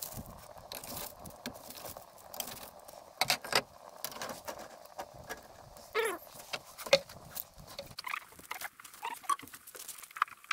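Metal tongs clinking and a wire grill grate clattering as it is laid over a charcoal and wood fire, with the fire crackling, several sharp knocks in a cluster about three seconds in and again around six and seven seconds. A short sliding squeak sounds about six seconds in.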